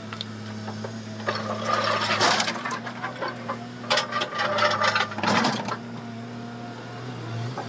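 Komatsu excavator's engine running with a steady hum, broken twice by a few seconds of loud rattling and clatter.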